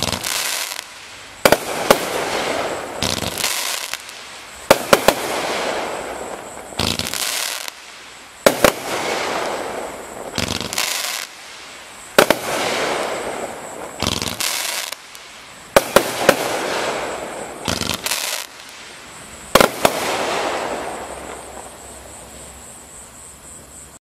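A 500-gram, 42-shot fan-shaped firework cake firing. Sharp launch reports come every one and a half to two seconds, and each is followed by a spell of crackling as the crackling bouquets burst. The crackle dies away near the end.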